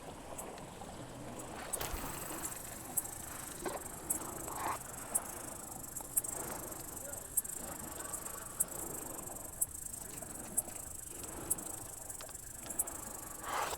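Insects chirring steadily at a high pitch, with a sharper chirp about once a second. A few soft knocks sound underneath.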